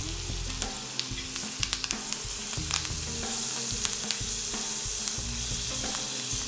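Boneless ribeye sizzling in hot peanut oil and melting butter in a cast iron pan, with scattered crackles and clicks as a metal spoon moves the butter around.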